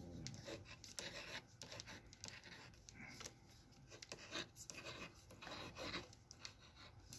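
Pen writing on paper: faint, irregular scratching strokes of the pen tip.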